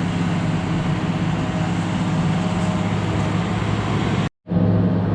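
Excavator diesel engine running steadily, with a low, even hum. The sound cuts out completely for a split second about four seconds in, then the engine hum returns.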